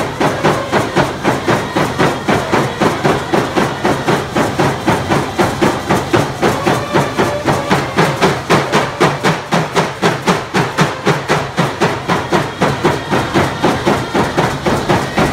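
Stick game (slahal) song: hand drums beaten together in a steady, fast rhythm of about three beats a second, with voices singing along at times.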